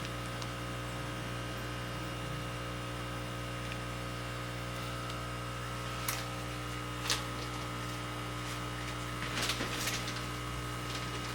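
Steady electrical hum made of several fixed tones, with a light click about six seconds in, a sharper one a second later and a short patter of clicks near the end.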